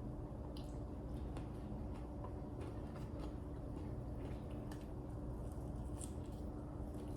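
Close-up eating sounds of fried chicken wings being bitten and chewed: many small, irregular crunchy clicks and mouth sounds over a steady low hum.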